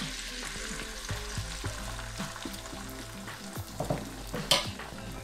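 Beaten egg with chopped tomato and onion sizzling as it is poured into hot oil in a frying pan, with small clicks throughout. A single sharp knock about four and a half seconds in is the loudest sound.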